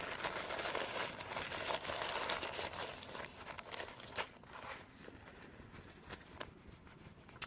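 Crinkling and rustling of a thin nylon dry sack food bag being handled and opened, busiest for the first three seconds, then dying down to scattered rustles and a few light clicks.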